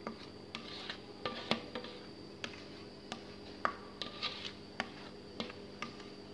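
Quiet background music: plucked notes and light taps over a steady held tone.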